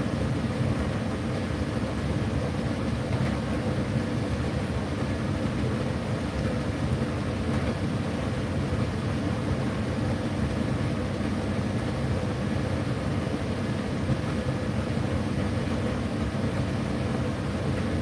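Indesit IDC8T3 8 kg condenser tumble dryer running mid-cycle: a steady, low hum of its motor, fan and turning drum.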